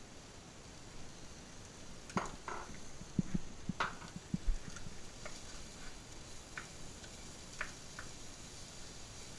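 Kitchen clatter at the stove: a cluster of knocks and clinks from dishes and utensils between about two and four and a half seconds in, then scattered light taps of a wooden spatula stirring vegetables in a frying pan, over a faint steady hiss.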